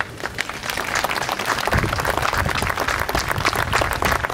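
Audience applauding, starting right away and keeping up steadily. A low rumble joins underneath about two seconds in.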